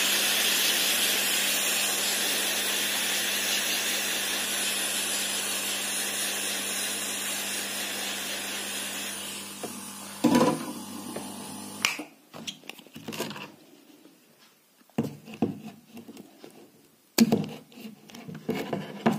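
Hot air gun blowing with its heater switched off, a steady hiss over a low hum that slowly fades and stops about twelve seconds in. After it come a few short knocks and handling sounds.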